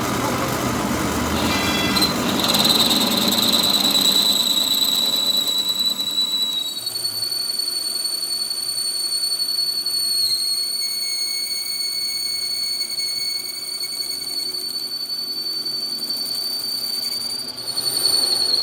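A machine running with a steady, high-pitched squealing whine. The first six seconds have rougher grinding noise underneath. About six and a half seconds in, the whine settles a little higher and smoother.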